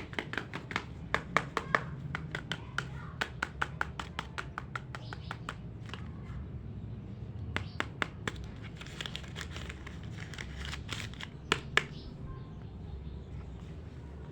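Small plastic toy pieces clicking and tapping as they are handled, dense rapid clicks for the first few seconds and then scattered ones, with a stretch of crinkling packaging about nine seconds in.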